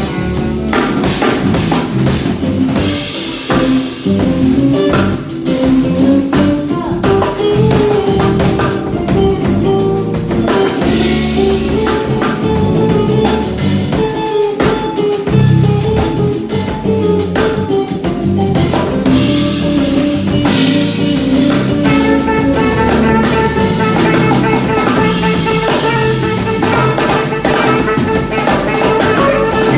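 A live band playing through a song at a soundcheck: drum kit and guitar with bass and a melody line on top, running on without a break.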